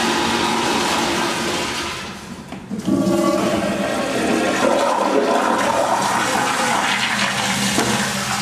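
Public restroom toilets flushing with a loud rush of water. One flush dies away about two seconds in, and a second starts abruptly about a second later and keeps going almost to the end.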